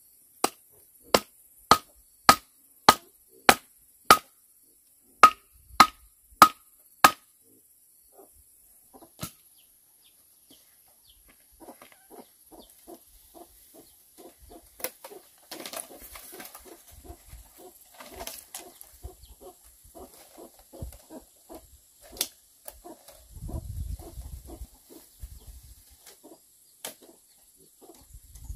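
About a dozen sharp, ringing knocks, roughly two a second, as a tool strikes a bamboo stick held upright in the ground. After a pause, hens cluck softly and steadily, with a few scattered knocks.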